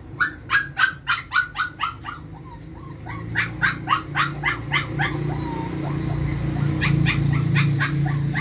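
A dog barking in quick runs of short, high barks, about three a second, with a pause between runs. A low steady hum comes in about three seconds in.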